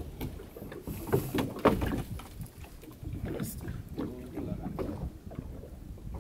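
A wire-mesh fish pot with a wooden stick frame knocking and rattling as it is gripped and shifted on a boat, with a cluster of sharp knocks about a second and a half in. A steady low rumble runs underneath.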